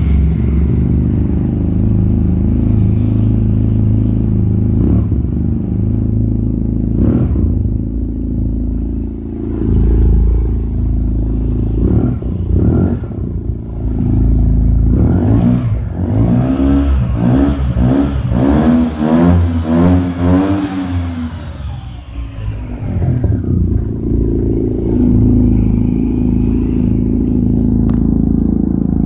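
Yamaha TMAX 530's parallel-twin engine idling through an Akrapovic full-system exhaust with a black muffler. The throttle is blipped briefly about ten and thirteen seconds in, then revved in a quick run of rises and falls from about sixteen to twenty-one seconds, before it settles back to a steady idle.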